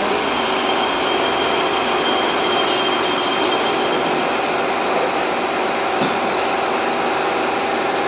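Steady drone of a running metal-melting furnace and its equipment, with a constant hum and a thin high whine that fades out about four seconds in.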